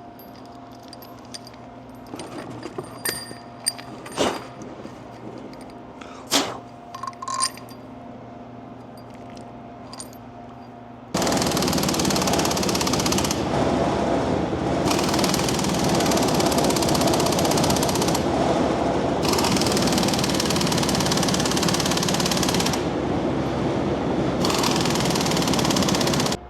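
A few light metal clinks over a steady hum, then, about eleven seconds in, an impact wrench starts hammering in long rapid bursts with brief pauses, running bolts down to fasten the axle back together.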